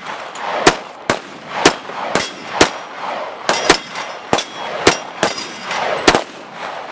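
Rapid pistol fire at a steel dueling tree, about a dozen shots at roughly two a second, with the hits on the steel plates ringing out in short clangs as the plates swing over.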